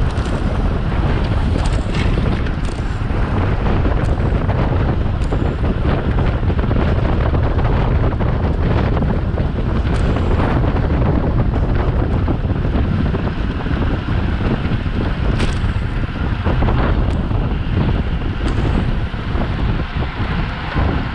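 Wind buffeting the microphone of a camera riding on a racing bicycle at speed: a loud, steady rumble, with a few short, sharp clicks scattered through it.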